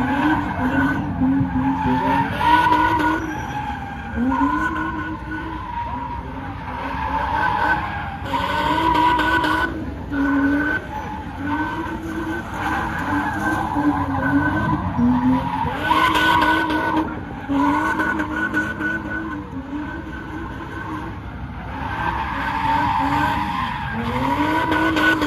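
A car at a street sideshow is doing donuts: its engine revs hard, its pitch rising and falling over and over, over steady tyre screech. The sound swells louder about every seven or eight seconds.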